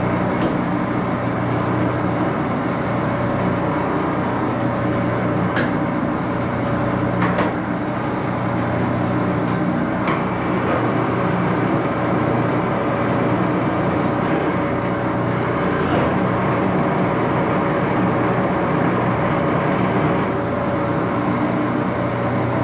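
Axelson 14 x 30 inch heavy-pattern geared-head lathe running steadily, its headstock gears giving a constant hum of several steady tones, with a few sharp clicks along the way.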